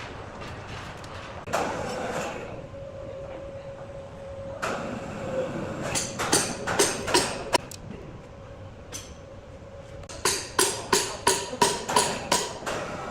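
A hammer striking a chisel into wood: two runs of sharp blows about three a second, each with a short metallic ring.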